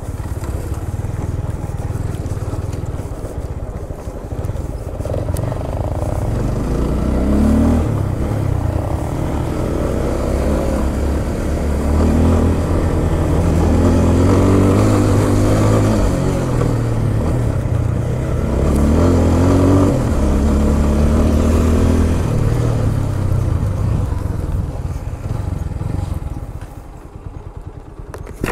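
Motorcycle engine under way on a rough trail, revving up and easing off several times, its pitch rising in a few pulls; it drops quieter near the end.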